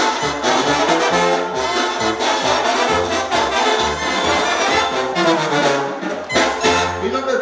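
Brass band music: horns playing a melody over a bass line that steps from note to note in a steady rhythm.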